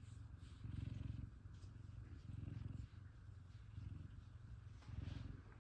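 An F2 Savannah cat purring while being stroked on the cheek and chin. It is a low, steady rumble that swells and fades in a regular rhythm a little more than once a second.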